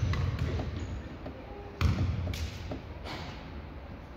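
A basketball bouncing on a gym floor: a few separate thuds, the clearest a bit under two seconds in and another about half a second later, each trailing off in the hall's echo.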